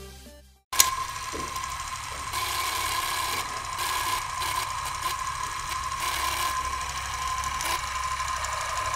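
Film projector sound effect: a steady mechanical clatter and whir with a constant high-pitched tone, starting abruptly about a second in.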